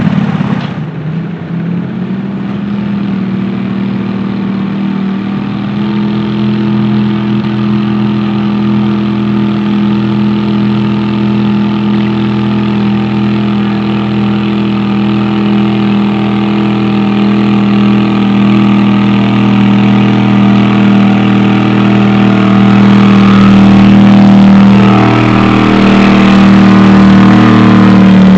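Modified garden tractor engine running steadily at a fast idle, close by, growing louder about three-quarters of the way through as the tractor is readied on the pulling sled.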